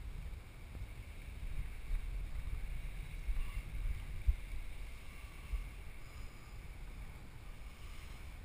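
Wind buffeting an action camera's microphone: a low, gusty rumble that swells and fades, with a brief thump a little after four seconds in.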